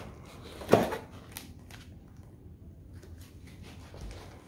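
Plastic wrap crinkling and foam inserts rubbing against the cardboard box as a laptop is lifted out of its packaging. The loudest rustle is about a second in, followed by lighter rustles and small taps.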